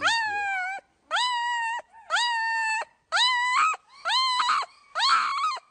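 A small puppy crying in high, whining yelps, six in a row about one a second, each rising quickly and then holding steady.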